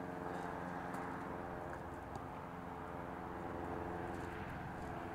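A vehicle engine running steadily with an even hum, with a few faint clicks of footsteps over it.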